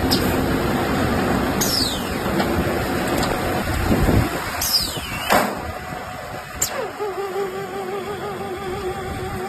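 Round silage baler and wrapping machine running, a steady mechanical din, with a few quick falling swooshes over it. From about seven seconds in the din drops and a wavering held tone, like music, takes over.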